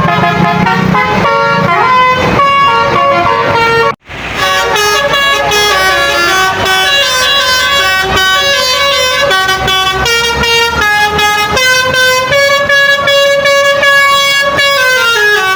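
Bus basuri musical horn, a set of horn trumpets driven by a tune module, playing a melody note by note, loud, with a short break about four seconds in.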